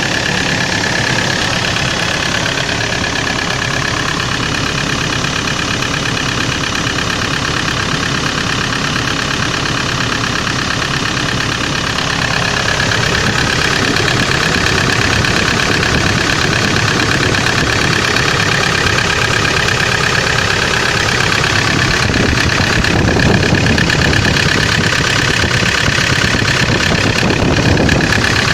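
Kia Sorento engine idling with a steady, rapid knock: a running engine with a knocking fault.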